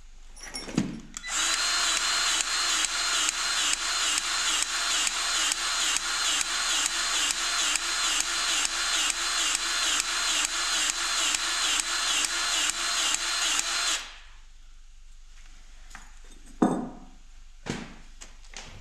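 Cordless grease gun running for about thirteen seconds, its pump pulsing about three times a second as it pushes grease out of the hose to pack a wheel bearing. It stops abruptly, with a few clicks and knocks of handling before and after.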